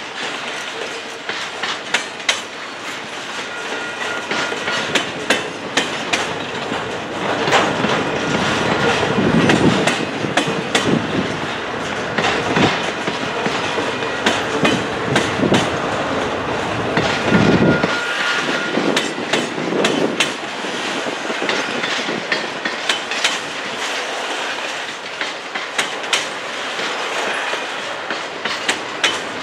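Double-stack intermodal container cars of a slow freight train rolling past, steel wheels clacking steadily over the rail joints. There are heavier thumps around the middle and a thin wheel squeal now and then.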